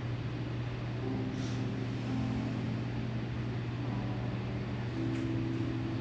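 A steady low hum over even background noise, with faint held tones that shift in pitch a few times.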